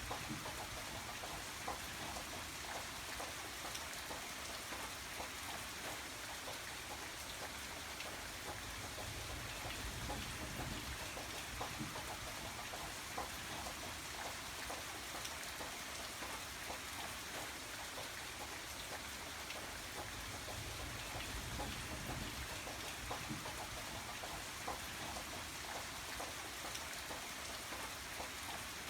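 Steady rain falling, with many fine drop ticks on a surface and no thunder or music.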